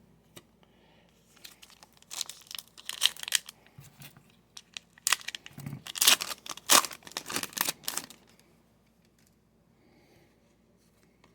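A trading card pack wrapper being torn open and crinkled by hand, in irregular crackling bursts that stop about two thirds of the way through.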